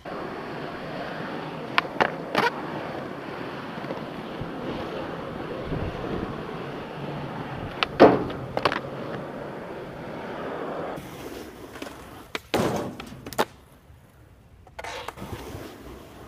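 Skateboard wheels rolling steadily on rough asphalt, with a few sharp board clacks about two seconds in and a loud clack about eight seconds in as the board hits a box obstacle. The rolling stops near the end, leaving a few separate board knocks.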